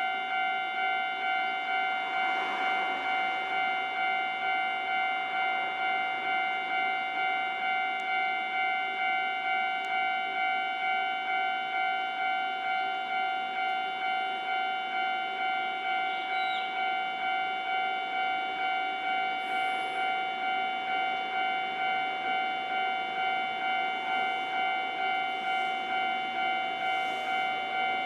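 Japanese level-crossing warning bell ringing in an even repeating strike, about twice a second, the signal that a train is approaching and the crossing is closed.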